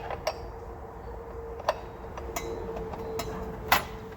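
A few sharp metallic clicks and clinks, about five spread over four seconds, as a miter saw is handled and made ready for a blade change. A faint steady hum runs underneath.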